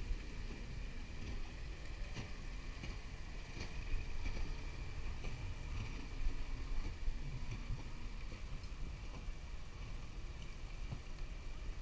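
Seaside ambience: a steady low rumble with a thin, steady high whine above it and a few faint ticks.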